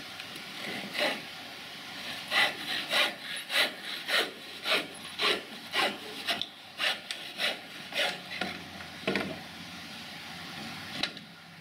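Hand saw cutting through scrap timber on a sawhorse: regular back-and-forth strokes, about two a second, starting about two seconds in and stopping about nine seconds in, with a single click near the end.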